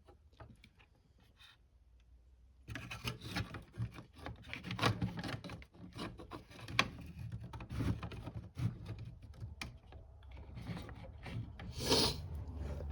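Irregular rubbing, scraping and light clicking of hands handling the radio's circuit board and chassis. It starts about two and a half seconds in, after a near-silent pause.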